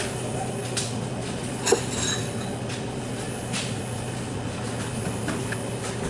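Refrigerated display case's newly fitted compressor running with a steady hum, while a few sharp metallic clicks or knocks sound over it, the loudest about 1.7 seconds in.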